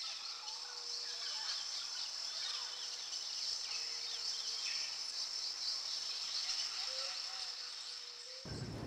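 Outdoor ambience of insects chirring steadily at a high pitch, with scattered small bird chirps over it.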